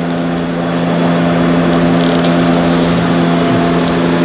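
A steady hum with several fixed pitches, with faint clicks about two seconds in and again near the end from a ratchet and 14 mm socket working the oil drain plug loose.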